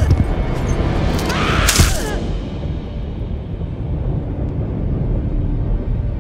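Film soundtrack: a heavy thud at the start, then a crash with a burst of high hissing noise about two seconds in, over a low rumbling music drone.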